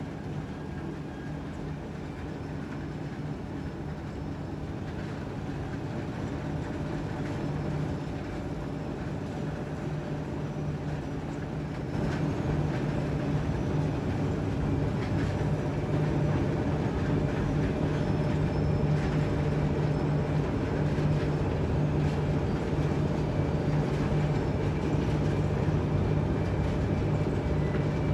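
Bucket-wheel excavator and belt-conveyor machinery running: a steady low rumble with a constant hum. It grows louder, with a sudden step up about twelve seconds in.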